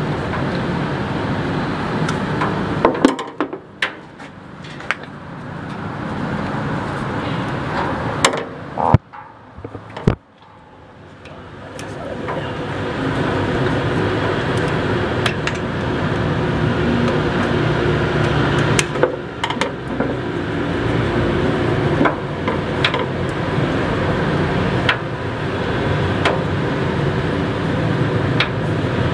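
Scattered clicks and knocks of a rubber fuel hose, its spring clamp and pliers being handled against a truck's chassis, over a steady mechanical background hum that drops out briefly twice.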